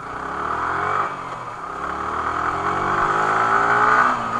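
Yamaha R15 V3's 155 cc single-cylinder engine pulling the bike up through the revs. The pitch rises, drops about a second in at a gear change, then climbs and grows louder again.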